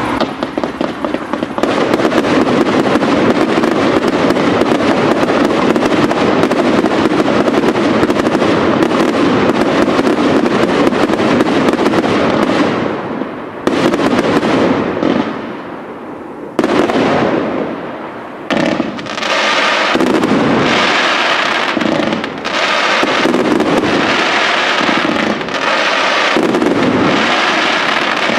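Professional fireworks display: a dense barrage of rapid, overlapping bangs and crackle. It thins out with short gaps about halfway through, then builds again into fast, continuous bursts.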